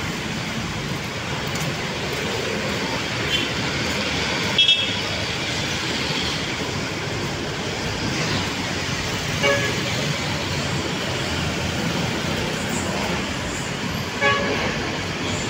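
Steady city road traffic noise, with short vehicle horn toots about four times; the loudest comes about four and a half seconds in.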